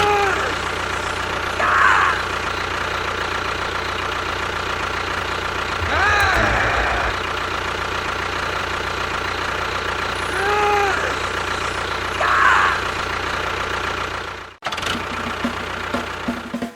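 An engine running steadily at idle, with a few short tones over it that rise and fall, every two to four seconds. The engine cuts out abruptly near the end.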